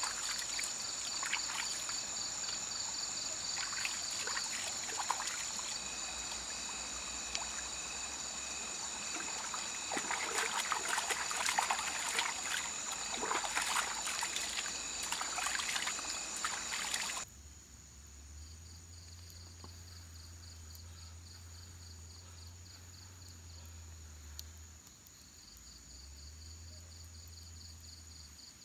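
Hands splashing and scooping in a shallow stream, with water trickling and many small splashes, over the steady pulsing chirr of insects. About two-thirds of the way through the water sound cuts off suddenly, leaving only the insects and a faint low hum.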